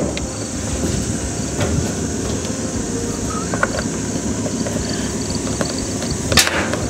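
Warn M8000 electric winch running under power from its wired remote, its motor and gears making a steady mechanical drone, with a sharp click near the end.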